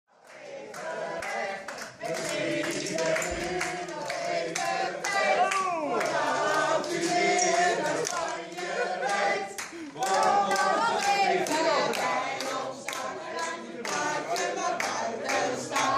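A group of voices singing a song together, with hands clapping along to the beat.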